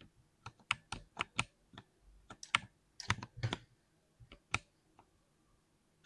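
Typing on a mechanical keyboard: irregular keystrokes, some in quick runs of two or three, with a longer pause about two-thirds of the way through.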